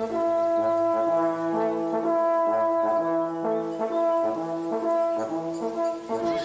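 Hunting horns sounding a call: several horns in harmony, one high note held throughout while the lower horns move from note to note.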